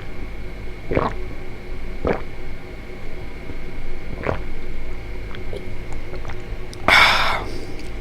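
A person drinking a chocolate-flavoured milk drink: three short gulping or swallowing sounds spaced a second or two apart, then a brief loud breathy exhale or slurp near the end.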